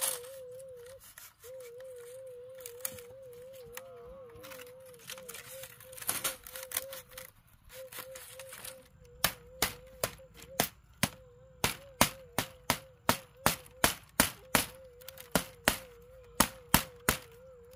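Split bamboo strips clicking and rustling as they are threaded into a woven bamboo mat, then, from about nine seconds in, a steady run of sharp knocks, about three a second, as a hand tool beats the strips tight into the weave.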